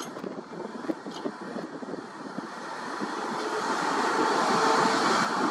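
Excavator with a vibratory pile hammer running. The machine noise grows louder from about halfway through, and a faint whine comes in near the end.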